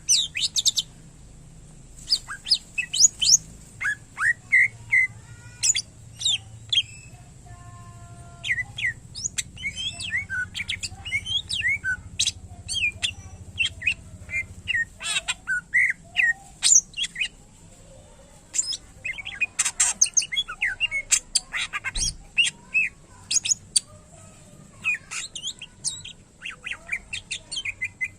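Cucak ijo (green leafbird) singing a fast, varied song of chirps, sliding whistles and harsh squawks, with mimicked phrases of other birds woven in. It breaks off briefly now and then.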